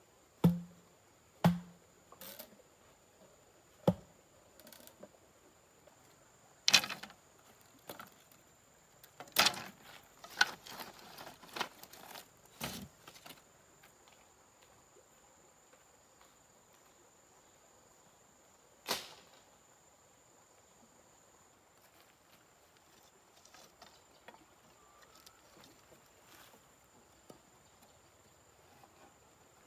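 Hollow bamboo tubes and slats knocking and clacking together as they are handled. The knocks are scattered, most of them in the first half and one more about two-thirds through, over a steady high insect buzz.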